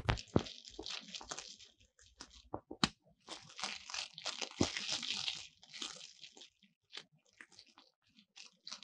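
Eggs frying in oil in a small pan, sizzling in two spells that die away before the end, with a few sharp knocks as an egg is cracked on the pan's rim.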